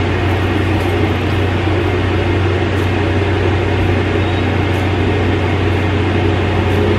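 Steady mechanical hum: a low drone under an even hiss, from a running window air conditioner.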